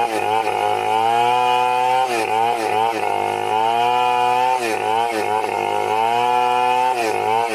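Large two-stroke chainsaw running at full throttle while ripping a wooden beam lengthwise. Its pitch sags and recovers several times as the chain bites into the wood and the engine is loaded.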